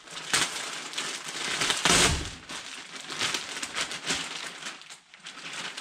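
Green bubble wrap and a clear plastic bag crinkling as they are handled and pulled off a packaged part, loudest about two seconds in.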